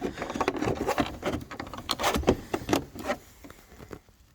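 Car door handle being lined up and fitted on the door: a quick run of small clicks and knocks of plastic and metal parts, thinning out to a few faint clicks after about three seconds.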